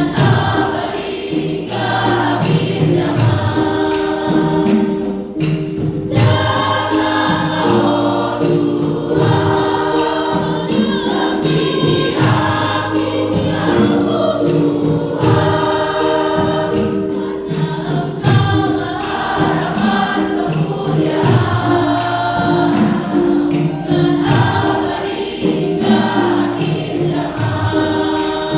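Junior high school choir singing a Christian praise song, with many voices together on long held notes.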